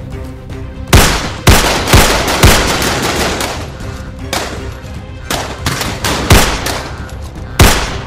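Gunfire from a film-style handgun shootout: four loud shots about half a second apart starting about a second in, then a looser run of further shots through the second half, each with a short echoing tail.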